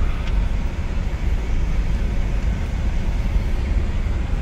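Inside a moving car: steady low rumble of the engine and tyres on the road.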